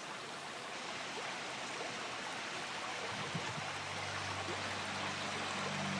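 Steady rush of running water, with a low steady hum joining about three and a half seconds in.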